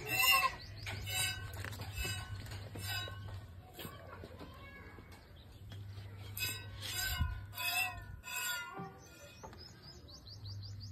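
Hand-milking a goat into a steel can: rhythmic squirts of milk hit the metal about every half second, each with a short ringing from the can, with a pause of about two seconds midway.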